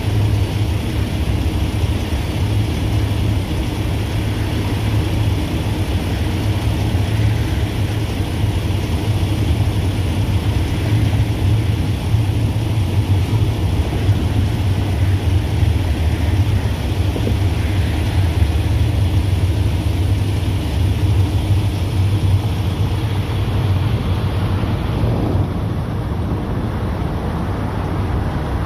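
Union Pacific double-stack intermodal cars rolling past on the rails: a steady low rumble of wheels on track. It eases slightly near the end as the train draws away.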